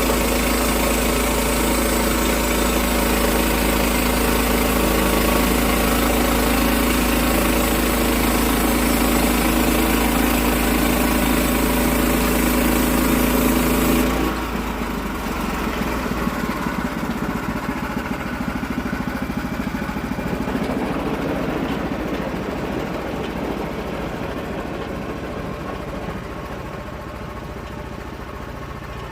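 Sawmill's gasoline engine running steadily. About halfway through the sound changes abruptly and drops, becoming rougher and less even, then slowly fades toward the end.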